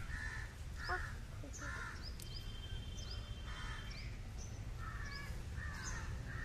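Birds calling: a string of short harsh calls, about one a second, among many quick high chirps, over a steady low outdoor rumble.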